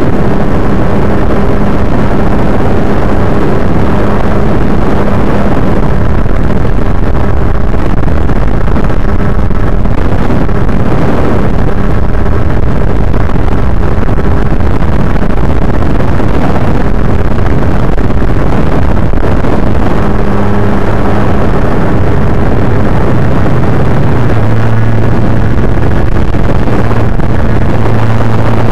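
Onboard audio from an electric-powered FPV model plane in flight: a loud, constant rush of wind and noise over a low motor-and-propeller drone whose pitch shifts as the throttle changes.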